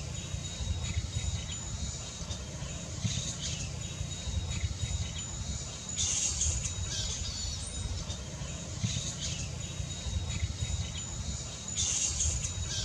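Outdoor ambience under a roost: a steady low rumble with bursts of high chirping calls about every three seconds, over a thin steady high-pitched insect-like whine.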